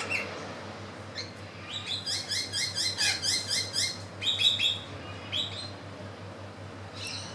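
A bird calling: a quick run of short, rising chirps, about six a second, from about two to five seconds in, with single chirps before and after, over a steady low hum.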